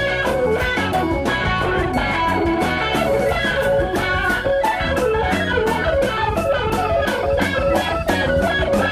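Instrumental break in a gospel band's song: an electric guitar plays a melodic lead line over a steady beat.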